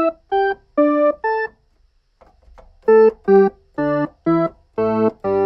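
1982 Technics SX-K200 electronic keyboard playing separate short notes: four notes, a pause, then six deeper, fuller-toned notes.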